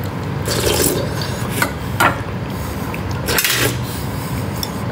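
Eating from a bowl with a spoon: a handful of separate clinks and scrapes of the spoon against the bowl, over a steady low hum.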